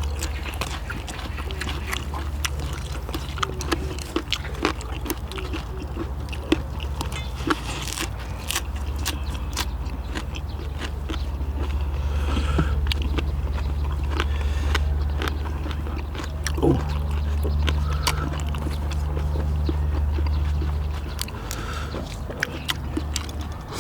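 People chewing and biting into stir-fried small octopus and boiled pork, with many small wet mouth clicks and smacks. A steady low hum runs underneath.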